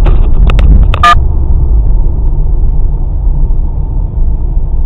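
Steady low rumble of a car driving, road and engine noise heard from inside the cabin, with a few short clicks about a second in.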